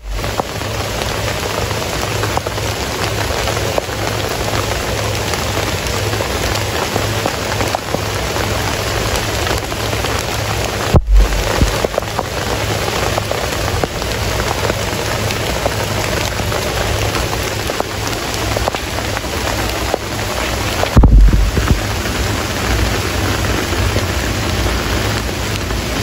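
Steady rain falling, an even hiss of many drops. Twice, about eleven and twenty-one seconds in, a brief low thump breaks through.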